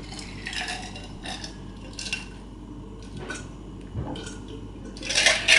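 Kitchen clatter: scattered light clinks and knocks of dishes and utensils, with a louder clatter near the end.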